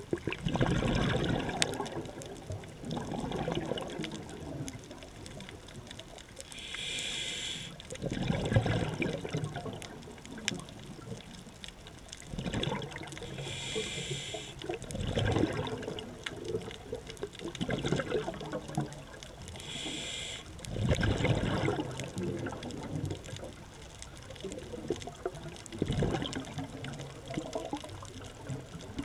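Scuba diver breathing through a regulator underwater: a short hiss of inhalation every six to seven seconds, each followed by a burst of exhaled bubbles.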